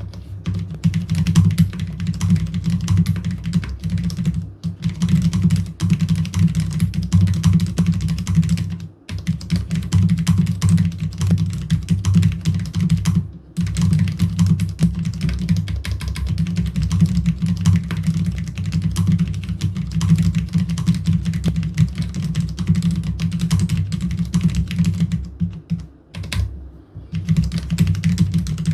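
Continuous fast typing on a Cherry MX Board 10.0 LP keyboard with Cherry MX low-profile red (linear) switches, keystrokes clattering in quick succession. There are short breaks about a third of the way in, just before halfway and near the end.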